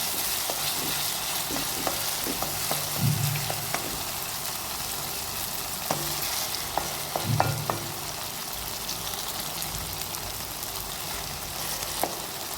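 A curry base of tomato and ginger-garlic paste sizzling steadily as it fries in a pan, with scattered clicks and scrapes of stirring.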